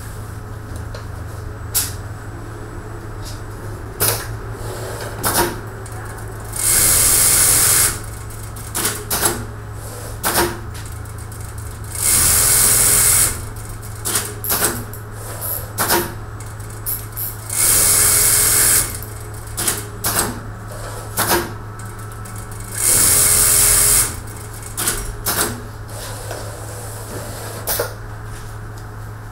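Automatic template sewing machine running a pocket-opening cycle: a steady machine hum broken by frequent sharp clicks and clacks of its pneumatic parts. About every five seconds a loud hiss of compressed air lasts about a second, four times in all.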